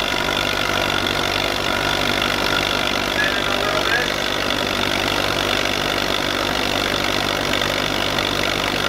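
Allis-Chalmers tractor's four-cylinder engine running steadily under load as it drags a weight-transfer sled.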